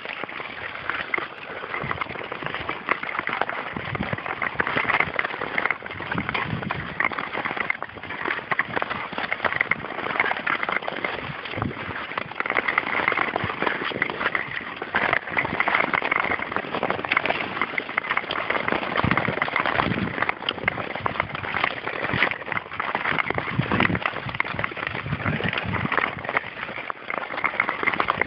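Long-blade Nordic touring skates scraping over rough natural lake ice: a continuous gritty hiss thick with small irregular crackles and clicks as the blades cut the surface.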